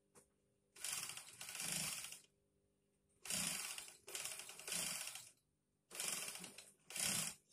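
Industrial lockstitch sewing machine stitching in short runs: six bursts of fast needle clatter, each about half a second to a second long, grouped in three pairs with brief pauses between as the fabric is guided.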